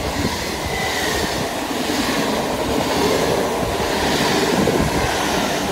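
NS VIRM double-deck electric train running past close along the platform, a steady rush and rumble of wheels on the rails. A faint high squeal dips slightly in pitch about a second in.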